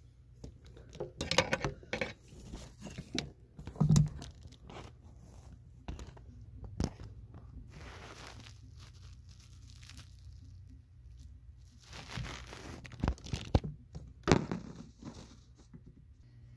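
Handling noises of tools and parts: scattered clicks and knocks, a few louder thumps and stretches of rustling, as the locking pliers and the removed rubber raw-water pump impeller are moved and set down on a metal surface.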